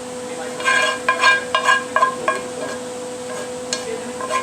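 A utensil scraping and clinking against a pan in a quick run of short strokes over the first couple of seconds, as the cooked mixture is emptied into a dish. The strokes pause, then start again near the end.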